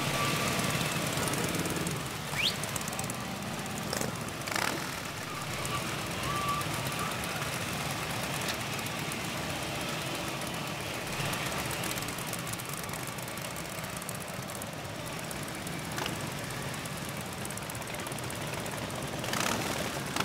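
Motorcycle engines idling in a steady low rumble, with a few sharp clicks scattered through.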